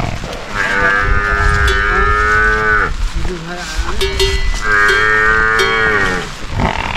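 A cow mooing twice, long drawn-out calls that sag in pitch as each one ends, with a few short metallic clinks in between.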